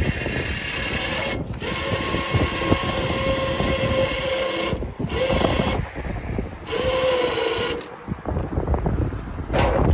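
Crane winch hoisting a shopping cart up out of the creek on its cable, the motor running with a steady whine and stopping briefly a few times as the lift is worked in spurts.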